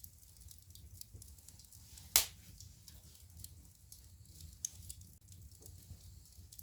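Wood fire crackling in a fireplace: scattered small snaps over a low steady rumble, with one loud sharp pop about two seconds in.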